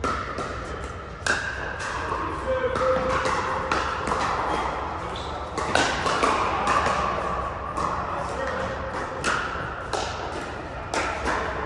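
Pickleball paddles popping against a plastic ball during a rally, a dozen or so sharp hits at irregular intervals, echoing in a large indoor hall, over a background hubbub of voices and hits from neighbouring courts.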